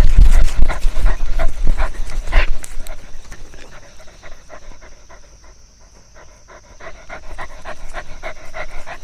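A dog panting rapidly, about three to four breaths a second, fading in the middle and growing stronger toward the end. A loud low rumble with knocks covers the first two seconds or so.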